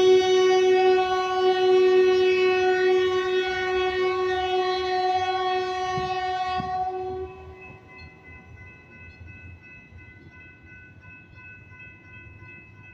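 Diesel multiple-unit train horn held in one long steady blast as the train pulls away, cutting off about seven seconds in. A much fainter steady tone carries on after it.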